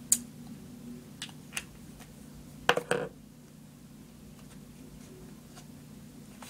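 Small clicks and knocks from handling a dry-erase marker and a small whiteboard: a sharp click just after the start, a couple of light taps, then a louder double knock about three seconds in. A low steady hum runs underneath.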